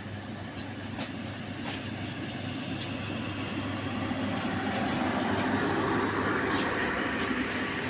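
Intercity passenger coaches rolling slowly past, with a steady low hum and rolling noise and a few sharp clicks of wheels over rail joints. The noise swells about halfway through as the generator power car goes by.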